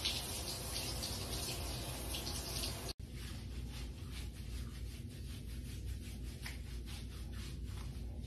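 Handheld shower spraying water steadily onto a dog in a bathtub. It breaks off for an instant about three seconds in and goes on duller and softer.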